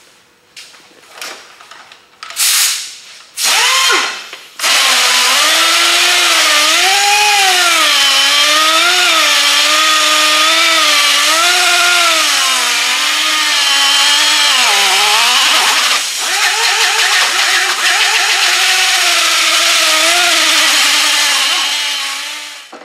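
Air-powered 8-inch dual-action sander with 36-grit paper cutting down a thick coat of Bondo body filler on a car firewall. A few short blips of the trigger come first, then a steady whine whose pitch wavers as the pad is pressed into the filler. The whine dips briefly past the middle and stops near the end.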